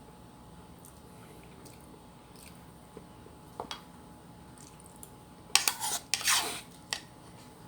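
Spoon scraping and clicking against a plate while eating: a couple of light clicks, then a loud burst of scraping lasting about a second and a half, about two thirds of the way through.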